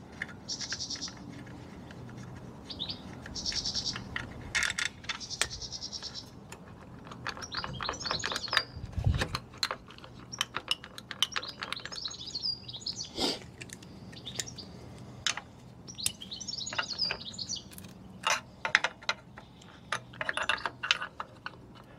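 Irregular metallic clicks and taps of hand tools working the kickstart lever off a 50cc scooter's engine side cover. Birds chirp in short bursts throughout.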